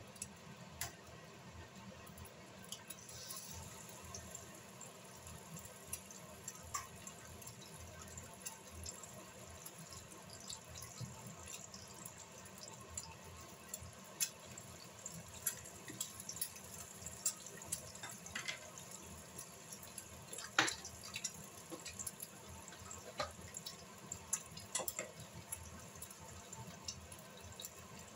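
Eggs frying in oil in a nonstick pan, sizzling with scattered small, irregular pops and crackles, one sharper pop about twenty seconds in.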